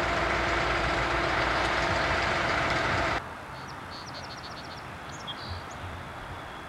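Amtrak Turboliner trainset passing close by with a loud, steady running sound and a few steady tones. About three seconds in it cuts off abruptly to quieter open-air background, where a bird chirps several times in quick succession.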